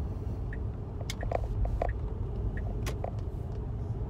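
Steady low road rumble inside a moving car's cabin, with a few short sharp clicks and smacks over it.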